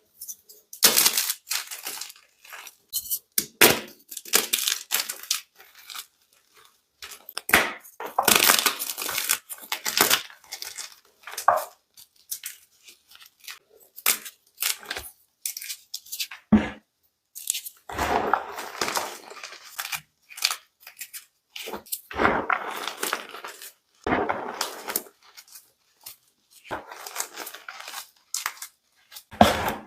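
White and blue gym chalk being crushed and crumbled, in irregular crunchy bursts with short pauses between them.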